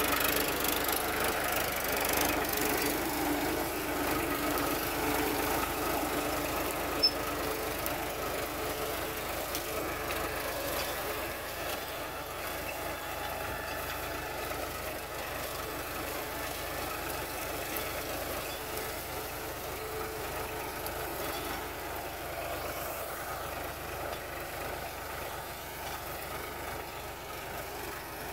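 Powertrac 439 Plus tractor's three-cylinder diesel engine running steadily while pulling a tined implement, growing gradually fainter as the tractor moves away. A single brief click about seven seconds in.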